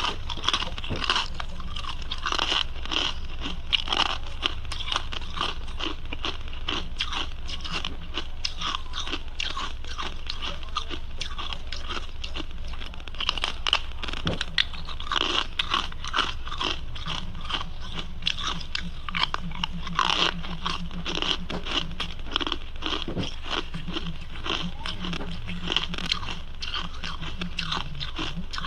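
Ice being bitten and chewed close to the microphone, with dense, crisp crunches all through. A low buzzing hum joins for several seconds in the second half.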